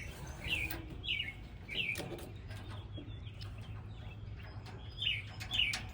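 A bird chirping in short, repeated notes that each drop in pitch: a run of three near the start and two more near the end. A steady low hum and a few light clicks sit underneath.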